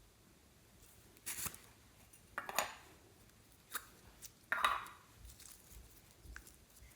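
Slime being squished and pressed by hand: four short, wet squelching crackles spread over a few seconds, the loudest near the middle.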